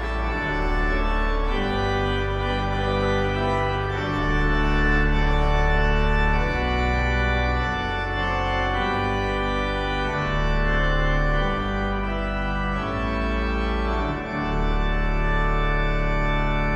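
Pipe organ playing slow, sustained chords over deep bass pedal notes, the harmony changing every second or two.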